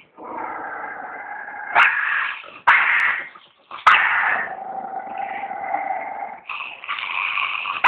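Small dog growling steadily, with about four sudden, louder snarling outbursts breaking in.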